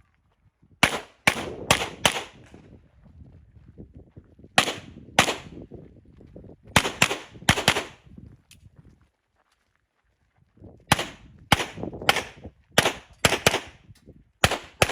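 Handgun shots fired in quick strings of two to four, each sharp crack followed by a short echo, with pauses between the strings. A longer silent pause about two-thirds of the way through is followed by a faster run of shots.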